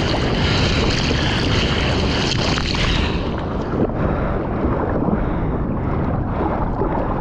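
Sea water splashing and sloshing around a bodyboard at the microphone's waterline as the rider paddles with his arms. A bright hiss of spray is strongest for about the first three seconds, then gives way to a lower wash with small splashes.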